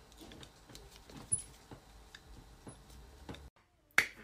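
Quiet room tone with faint scattered ticks and taps, then a moment of dead silence, and near the end a single sharp smack.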